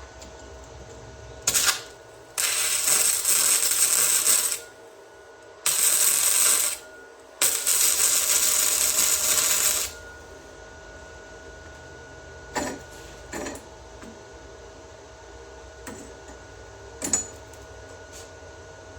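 Arc welding on the turbo flange in three short bursts of crackling, about two seconds, one second and two and a half seconds long, followed by a few light metallic clicks.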